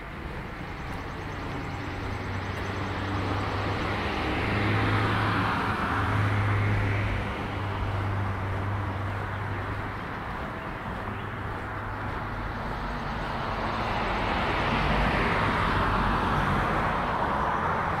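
Two cars passing on a residential street, each a swell of engine and tyre noise that rises and fades, the first about five seconds in and the second near the end.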